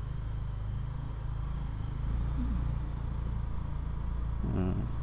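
Motorcycle engine running at low speed, a steady low hum that gets a little louder about two seconds in. A brief voice is heard near the end.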